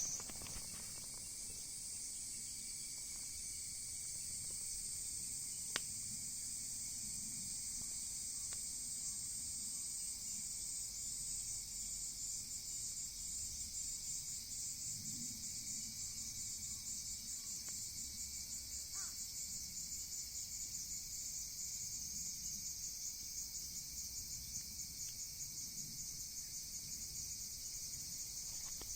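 Insects chirping in a steady high-pitched chorus that takes on a fast, even pulse partway through, with a single sharp click about six seconds in.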